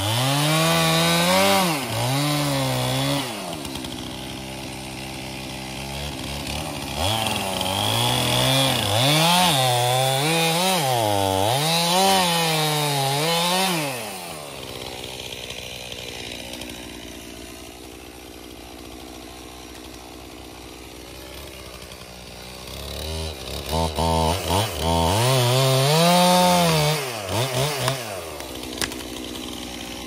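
Stihl two-stroke chainsaw revving up and dropping back to idle, again and again. It revs at the start, then rises and falls several times through a long stretch in the first half, idles for a while, and near the end revs in quick stuttering blips before settling back to idle.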